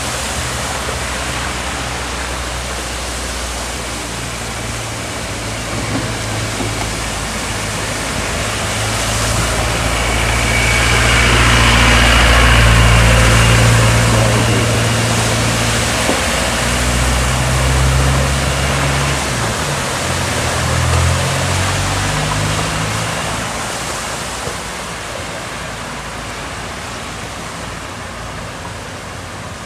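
Floodwater rushing in a steady loud wash, with a vehicle engine running through it; both swell to their loudest about ten to fourteen seconds in, then ease off.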